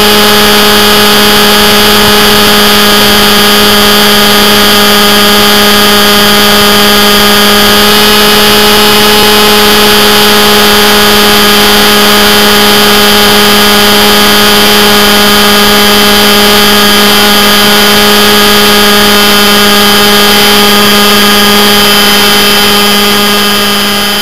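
R/C scale Hughes 500E model helicopter's motor and rotor, heard very loud and close from a camera mounted on the helicopter, running at a steady pitch with a high whine above the drone. The sound fades out near the end.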